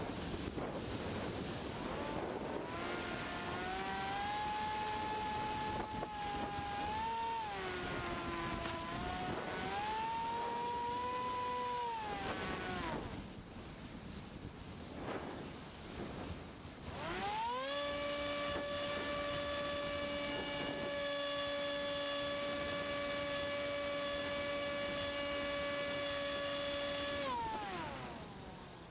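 A Multiplex EasyStar model plane's electric motor and pusher propeller, heard from on board over wind rush. Throttle comes up about two seconds in, with the pitch shifting up and down. It eases off around thirteen seconds, leaving mostly wind. It opens again to a steady high tone from about eighteen seconds and drops away near the end.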